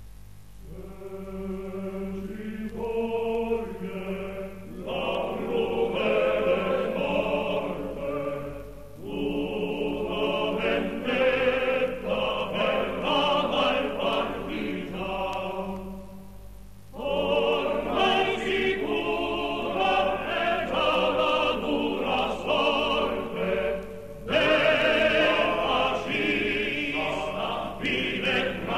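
A choir singing a song in long phrases, with short breaks between them, over a steady low hum.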